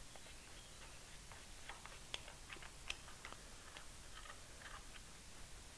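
Faint, scattered light metal clicks of an Allen wrench working the jaw screws of aluminum soft jaws in a milling vise.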